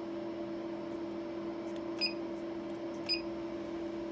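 Two short electronic key beeps, about a second apart, from an embroidery machine's touchscreen control panel as its on-screen buttons are pressed. A steady electrical hum runs underneath.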